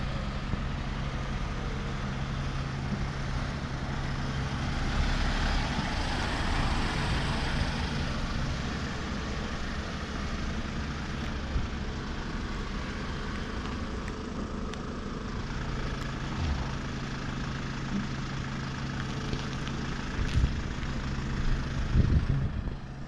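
A vehicle engine idling with a steady low hum, with a wash of louder traffic-like noise about five seconds in and a few thumps near the end.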